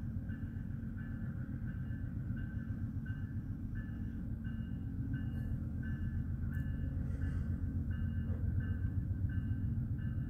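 Amtrak GE P42DC diesel locomotive's V16 engine rumbling as it rolls slowly past, growing louder in the second half. A high pulsing note repeats about twice a second over it.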